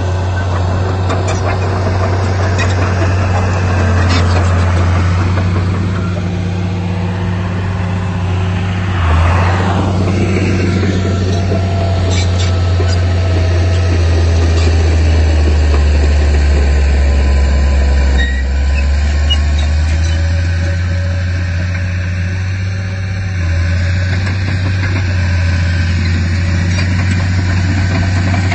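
Heavy diesel engine running steadily; for a few seconds past the middle its note drops lower and grows a little louder, as under load.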